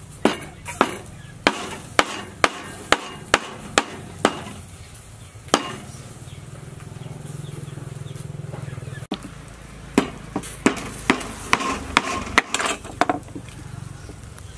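Cleaver blade knocking on a wooden chopping board as small round green fruits are cut: a run of about ten sharp knocks, roughly two a second, then a pause of a few seconds, then another run of knocks.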